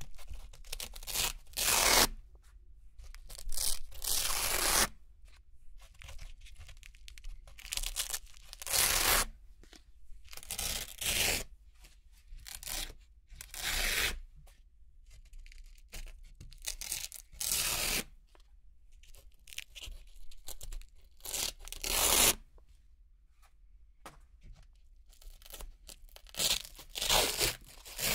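Round hook-and-loop (Velcro) discs being peeled off and pressed onto a Velcro-covered board: a long series of short ripping tears, one every second or two, with quieter gaps between.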